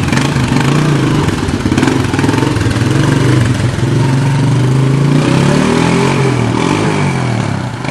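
Kawasaki 250 ATV's single-cylinder four-stroke engine running as it is ridden off, its pitch rising and falling with the throttle in the later seconds. The engine is freshly repaired after a bent valve, with its compression restored.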